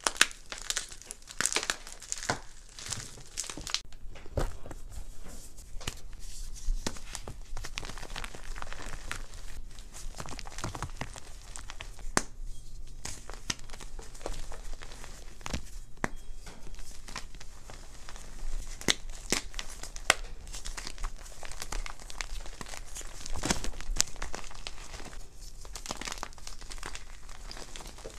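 Pieces of gym chalk crushed and crumbled between the fingers: dense crunching and crackling with sharp snaps now and then.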